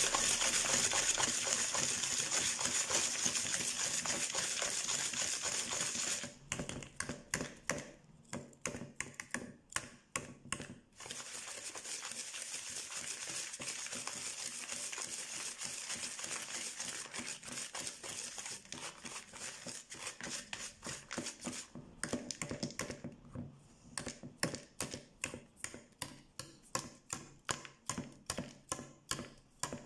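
Wire whisk creaming butter and sugar in a plastic mixing bowl, scraping and clicking against the bowl in a steady rhythm of about two to three strokes a second.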